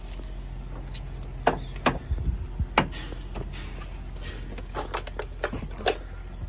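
Several sharp knocks and thumps of someone climbing up into a truck cab, scattered through the middle, over a steady low hum.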